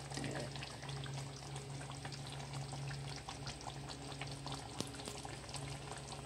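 Thick beef curry simmering in a wok, the sauce bubbling with many small pops and sputters over a steady low hum.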